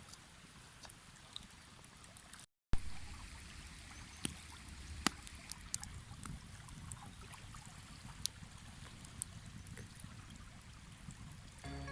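Mountain stream babbling steadily, with scattered sharp clicks over it. The sound cuts out for a moment about two and a half seconds in, then returns fuller in the low end.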